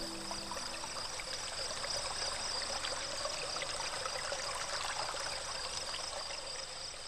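Trickling, running water with many small splashes, under a steady high-pitched chirring like crickets; it fades gradually toward the end.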